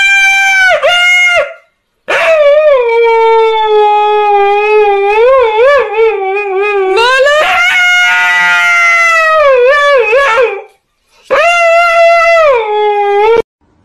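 Husky howling: a howl that ends about two seconds in, then a long, wavering howl of about eight seconds, then a shorter one that stops abruptly near the end.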